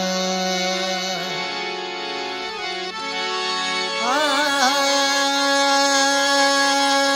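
Slow, unmetered opening of a Sufi morning raga: long held notes over a steady drone, with a new melodic line entering about four seconds in with wavering, sliding ornaments.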